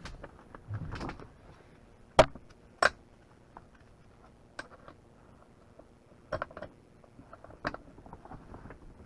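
Scattered sharp knocks and clinks of hard parts being handled during work on a boat stand, the two loudest a little over two seconds in and about a second apart, with fainter ones later.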